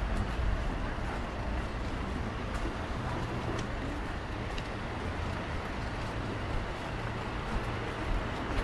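City street ambience: a steady low rumble of road traffic with a general background hiss of the street and a few faint ticks.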